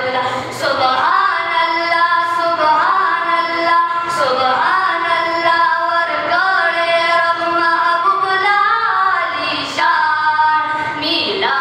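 Pashto naat sung unaccompanied by young, high-pitched voices in long, drawn-out melodic phrases, amplified through a microphone.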